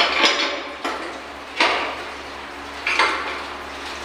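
Heavy steel chain of a manual chain hoist clanking as it is handled: a quick double clank at the start, then single clanks about a second and a half apart.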